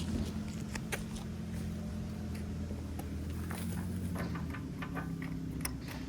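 Scattered light clicks and knocks of hands handling gear, over a steady low mechanical hum.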